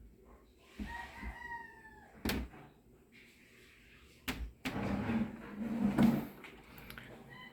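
A rooster crows about a second in. Sharp knocks follow, then a louder stretch of knocking and scraping, as of wood being handled.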